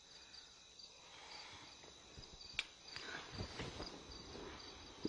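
Faint cricket chirping that repeats evenly, with a few soft knocks and rustles in the second half and one sharp click a little past the middle.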